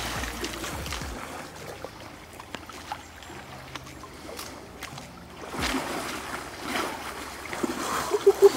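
Shallow river water splashing and sloshing, with louder splashes about six and seven seconds in.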